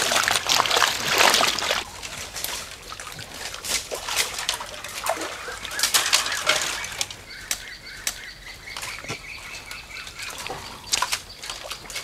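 Splashing and sloshing in the shallow, muddy water of a drained fish pond as fish are caught, heaviest in the first two seconds, then scattered splashes and knocks.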